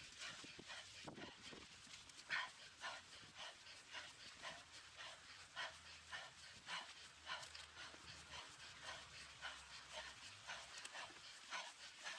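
A mountain biker's heavy breathing: rhythmic panting in and out, about two breaths a second, faint and steady.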